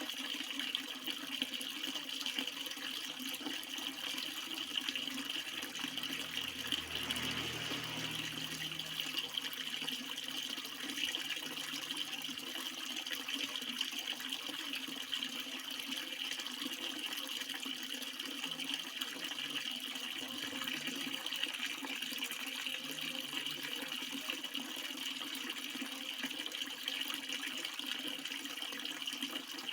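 Water flowing steadily in an unbroken, even rush, with a faint low rumble joining in about seven seconds in.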